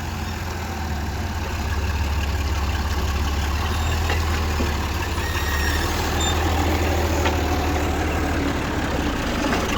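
Steady low drone of farm machinery running, with a few faint ticks and short high chirps over it.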